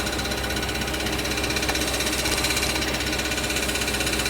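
Audi 4.2-litre V8 idling after start with a rapid, steady metallic rattle from under the engine that keeps time with engine speed. It is the starter's pinion gear, which a failing return spring leaves only partly withdrawn, rattling against the flywheel.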